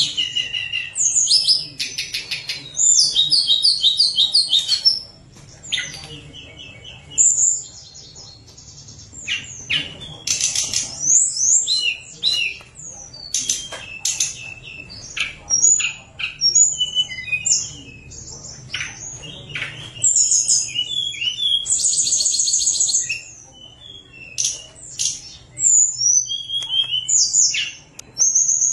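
Tledekan gunung singing its full, varied song: loud fluting whistles mixed with fast chattering trills in bursts, with short lulls, and a long rapid trill about two-thirds of the way through.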